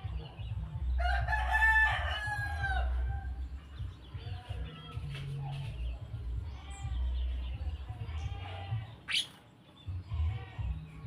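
A long drawn-out bird call of about two seconds, about a second in, then shorter, fainter bird calls and a quick rising note near the end, over a low rumble.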